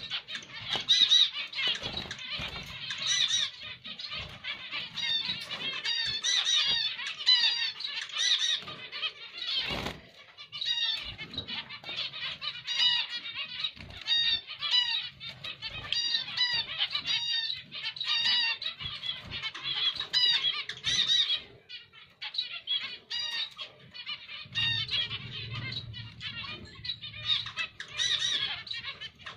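Zebra finches calling: a dense, rapid run of short chirps that overlap one another, with a single sharp knock about ten seconds in.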